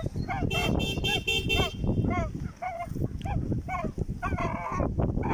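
A flock of white domestic geese honking over and over as they walk, with short calls following each other every fraction of a second and a harsher squawk near the end. About a second in there is a short, rapid pulsing buzz.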